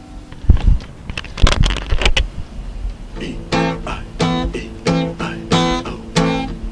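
Guitar playing with no singing. A few sharp percussive knocks and plucks come first, then from about three seconds in a steady strummed rhythm of the same chord, about three strums every two seconds.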